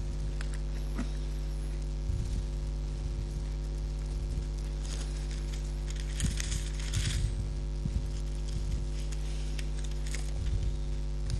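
Steady electrical mains hum, with scattered light knocks and clicks of handling and a brief rustle about five to seven seconds in.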